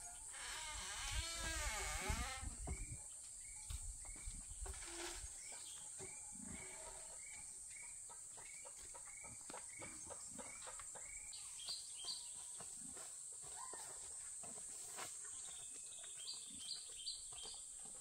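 Rural outdoor ambience: a steady high insect drone under a bird's repeated short calls, with a few higher chirps later on. A burst of rustling noise comes in the first couple of seconds.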